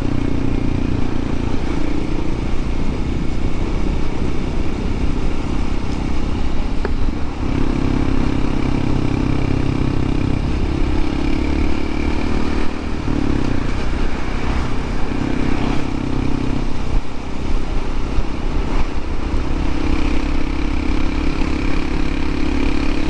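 Honda CT125 Hunter Cub's single-cylinder engine running under way, its note steady but easing and picking up again several times, over constant road and wind rumble.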